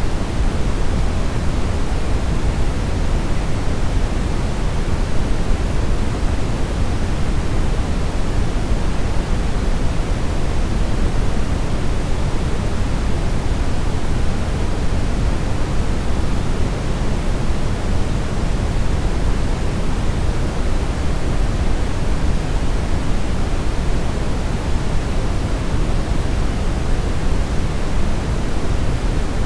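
Steady brown noise: an even, unbroken rushing hiss, strongest in the deep bass and falling away toward the treble.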